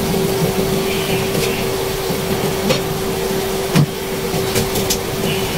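Pork ribs simmering in sauce in an uncovered pan over a steady single-pitched hum. A few light clicks, with one sharper knock just before four seconds in, as the glass lid comes off the pan.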